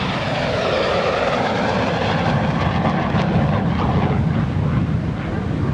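MiG-17PF jet fighter's VK-1F turbojet running in afterburner on a low, fast pass: a loud roar whose pitch drops as the jet goes by, settling into a low rumble.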